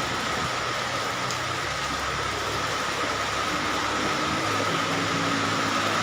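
Heavy rain pouring steadily, a dense even hiss. Low tones come in about three and a half seconds in.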